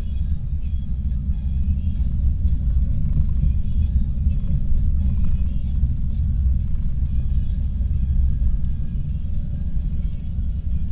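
Car driving on a dirt road, heard from inside the cabin: a steady low rumble of tyres on the dirt and the running engine.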